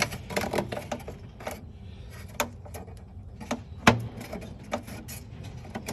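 A newly made thin 2024-T3 aluminium rib piece being worked into place in an aircraft's belly structure: scattered light clicks and metallic knocks at irregular intervals, with one sharper knock about four seconds in.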